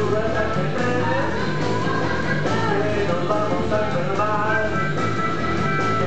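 Live blues-rock band playing: electric guitars, bass and drums, with a harmonica wailing bending lines over the top.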